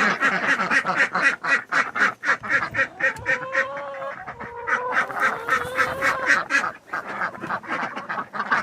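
A flock of domestic ducks quacking in rapid chatter, with a longer, wavering call in the middle.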